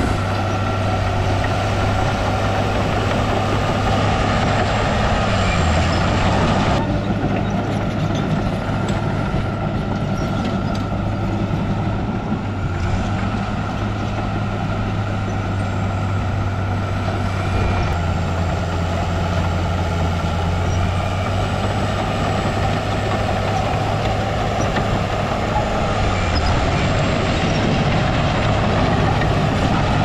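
Diesel engine of heavy earthmoving machinery running steadily, with a constant low drone. The higher-pitched noise thins out about seven seconds in.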